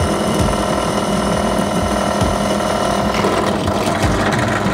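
Bench drill press running steadily, its bit drilling into a small flat metal bar and throwing off chips.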